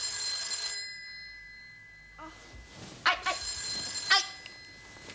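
Telephone ringing twice with a high electronic trill, the second ring about three seconds after the first.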